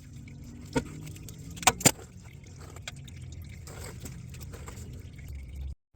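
A few sharp clicks and knocks over a low steady hum, two of them close together about two seconds in.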